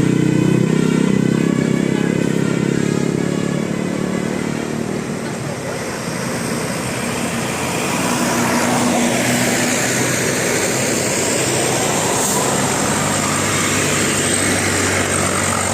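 Road traffic with a vehicle going by around the middle. In the first few seconds a bus's multi-tone basuri horn holds a chord and fades out.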